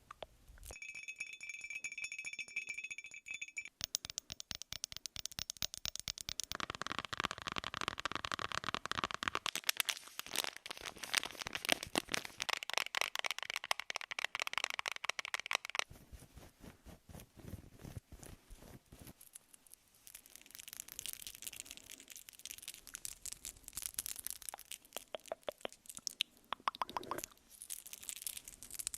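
A run of close-miked ASMR trigger sounds: dense, rapid crackling, rustling and clicking that changes texture every few seconds. A short steady ringing tone with several pitches sounds near the start.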